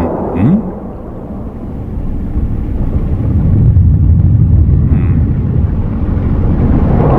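A loud, steady low rumble that dips about a second in and swells again from about three seconds on.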